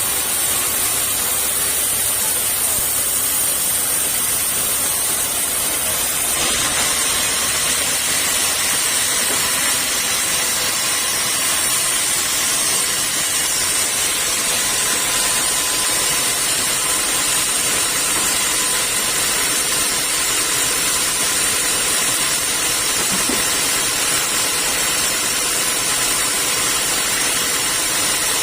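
Sawmill machinery running steadily: a continuous hissing mechanical noise with a faint high whine and no distinct cutting strokes. The noise shifts slightly about six seconds in.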